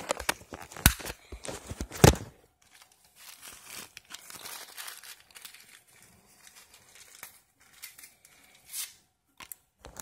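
Paper tea bags and their paper packaging being torn and crinkled by hand, with two sharp knocks in the first two seconds, then softer rustling.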